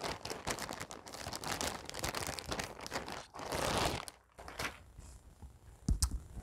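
Plastic packaging crinkling and rustling as an item is pulled out of a shipping bag, for about four seconds, then a few fainter handling noises and a soft low bump near the end.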